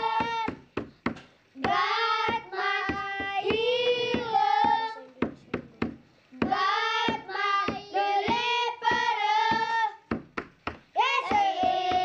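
A group of children singing a worship song in unison in three long sung lines. In the short pauses between the lines they clap their hands a few times.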